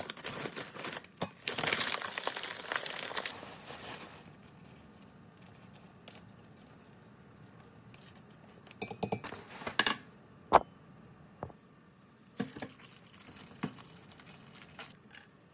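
Plastic packaging crinkling as frozen berries are tipped from a bag into a glass blender jug. Then come a few clinks and a sharp knock around the jug, and another stretch of packet crinkling near the end.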